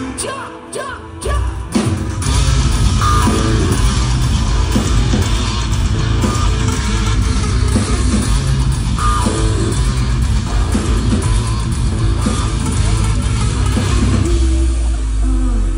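A live metalcore band playing loudly through the PA: distorted guitars, bass and drums. It starts sparse with a few hits, and the full band kicks in about two seconds in.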